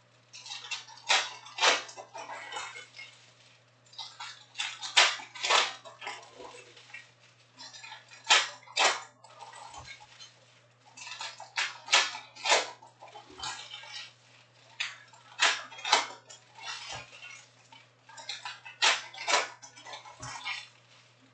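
Foil wrappers of Topps Chrome trading-card packs crinkling and cards being flipped and shuffled by hand, in irregular bursts of crackly rustling, over a faint steady low hum.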